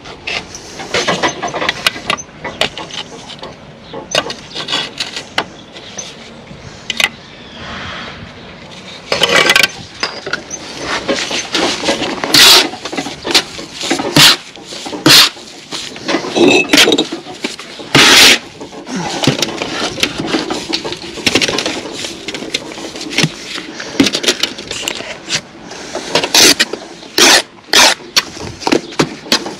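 Steel brick trowel scraping and knocking on a mortar spot board as mortar is picked up and buttered onto blue engineering bricks. Sharp scrapes and clacks come in quick irregular runs, louder and more frequent from about nine seconds in.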